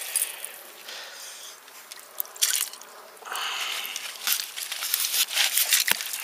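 A dog's paws splashing and crunching through shallow water on wet pebbles: quiet for the first few seconds, then a busier run of splashes and stone clicks from about three seconds in.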